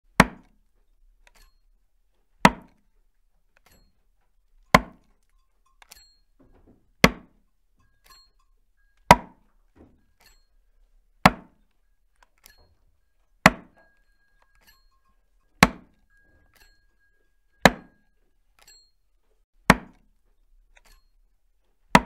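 Axe chopping wood: a steady series of single strikes, about one every two seconds, each short and sudden and dying away quickly, with faint small knocks between the blows.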